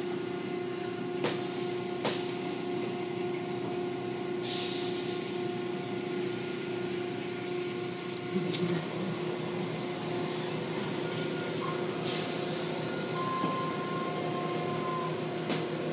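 Automatic tunnel car wash running: a steady machinery hum under the hiss and swish of water, foam and spinning cloth brushes working over a car. There are a few sharp knocks and two longer surges of spray hiss, one a few seconds in and one about three quarters of the way through.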